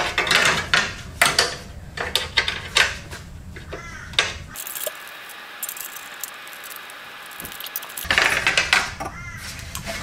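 Metal hand tools clicking and clinking against metal in quick, irregular strokes while the motorcycle's chain guard bolts are undone with a 10 mm wrench.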